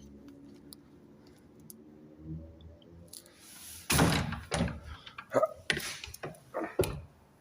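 A few seconds of quiet, then a string of knocks, thuds and scrapes from about three seconds in, the loudest about a second later: someone clambering up into an attic.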